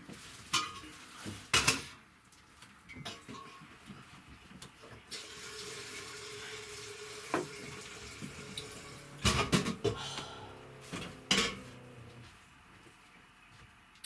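A tap running into a sink for about four seconds, with a steady hum alongside it. Knocks and clatter of dishes and containers come before and after.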